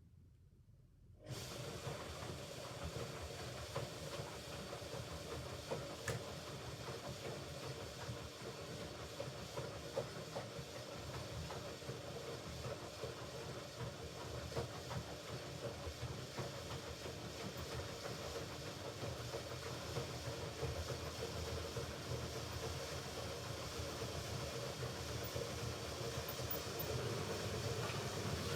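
Hoover Ecologic Computer Washer 1300 washing machine starting up suddenly about a second in, then running with a steady rushing noise and a low hum that grows slightly louder.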